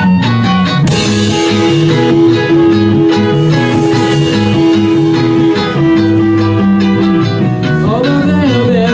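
Instrumental rock music led by guitars, with one note held for about six seconds from about a second in.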